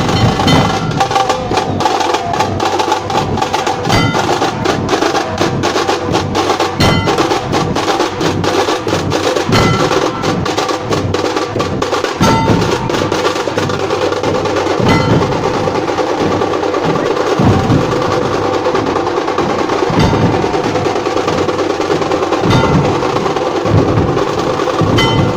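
Nashik dhol drumming: large barrel drums beaten hard in a fast, steady, driving rhythm, with ringing metallic tones over the strokes.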